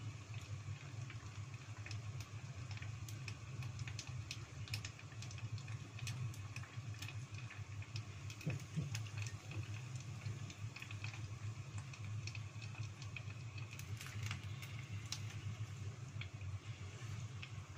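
Tofu sempol on wooden skewers deep-frying in a small pot of hot oil: irregular crackling and popping over a steady low hum.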